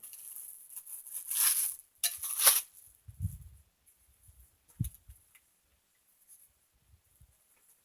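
Handling noise from chop saw stand parts being worked by hand: a few short scraping rustles, a low thud about three seconds in and a sharp knock near five seconds, then little more. A part is being tried for fit and goes on tight.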